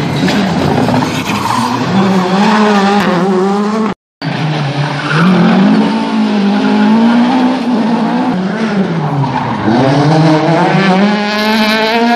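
Rally car engines revving hard through a tight bend, pitch climbing and falling repeatedly as the drivers brake, shift and accelerate away. The sound cuts out briefly about four seconds in, then another car is heard doing the same.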